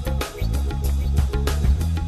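Background music: a track with a steady bass line and drum beat.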